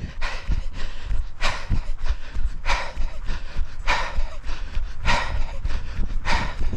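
A runner's heavy breathing: a hard, breathy exhale about every second and a quarter, with fainter steps between, over a steady low rumble.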